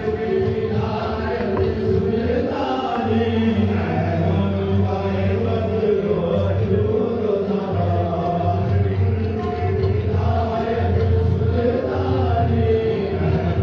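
A group of voices chanting together in a sustained, melodic devotional chant.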